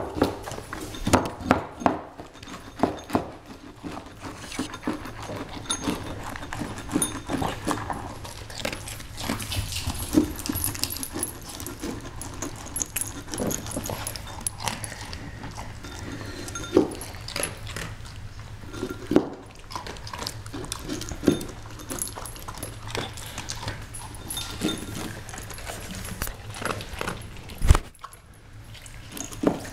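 A dog eating from a bowl on a hardwood floor: a busy run of irregular clicks and knocks as it feeds and the bowl shifts and knocks against the boards, with one sharper, louder knock near the end.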